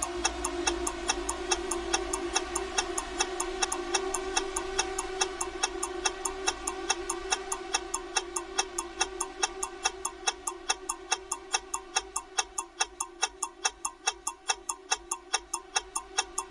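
Bomb countdown timer's clock-ticking sound effect, about three sharp ticks a second, steady throughout. Under it is a steady hum that fades over the first half.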